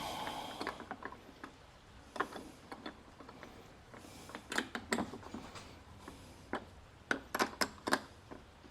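Ratchet wrench clicking in short, irregular runs while tightening the hood hinge bolts, with a brief scrape of metal at the start.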